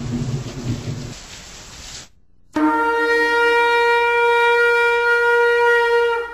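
A low rumble of thunder fading out over the first two seconds. Then, after a brief hush, one long horn blast: a short low note that jumps up to a steady, held higher note.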